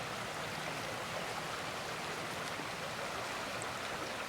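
Creek water running: a steady, even rush of flowing water.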